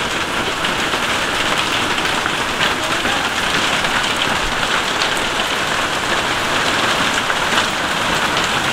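Heavy rain falling steadily, with a few sharp ticks here and there.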